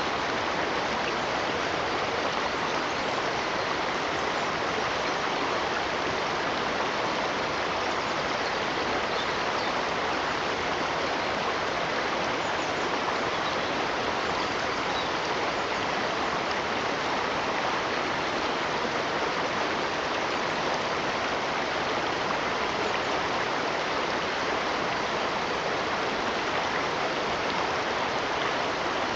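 A stream of running water, a steady, even rush that doesn't change.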